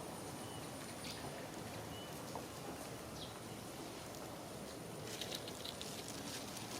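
Steady outdoor background hiss with a few faint, short high chirps and a brief patter of clicks about five seconds in.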